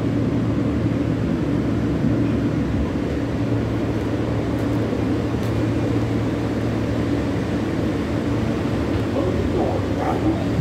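New York City L train subway car running, heard from inside the car: a steady rumble with a constant low hum.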